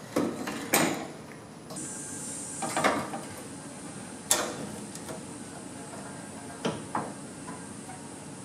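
A handful of scattered knocks and clunks as an aluminum radiator and its fan shroud are handled and lifted out of a car's engine bay, the sharpest about a second in and about four seconds in.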